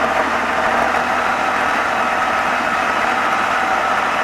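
Diesel engine of a Tatra eight-wheel trial truck running steadily at low revs as the truck crawls through rocks.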